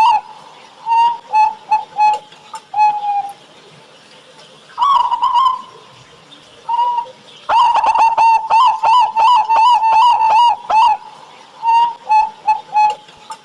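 Zebra dove (perkutut) cooing: phrases of quick, short coos, several ending in a longer drawn-out note, with a long fast run of coos in the middle.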